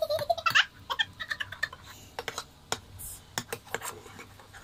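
A metal spoon clicking and scraping against a small electric cooking pot as bread is turned in it: a quick, uneven series of sharp clicks. A brief voice-like sound comes right at the start.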